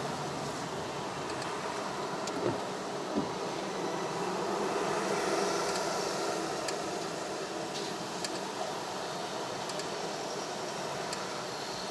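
Steady traffic and engine noise heard from inside a car creeping forward and stopping in city traffic, with two brief knocks about two and a half and three seconds in.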